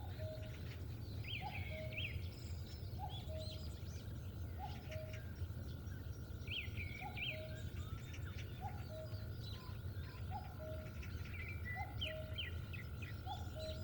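Birds calling across an open field. One bird repeats a low two-note call, a short higher note then a lower one, about every second and a half, while others chirp and trill higher up. A steady low rumble runs underneath.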